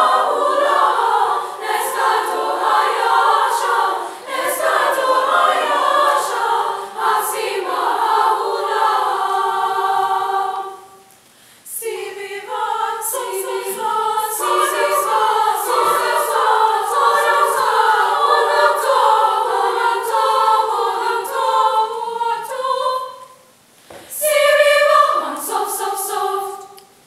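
Women's choir singing in harmony, the phrases broken by brief pauses about eleven seconds in and again near twenty-four seconds, then a last phrase that ends the piece near the end.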